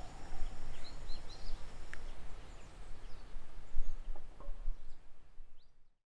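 Outdoor ambience: a steady rushing with an uneven low rumble, and small birds chirping now and then. It fades out about six seconds in.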